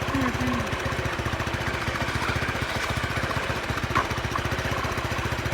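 Honda Elite 250 scooter's single-cylinder four-stroke engine idling steadily, with a short sharp click about four seconds in.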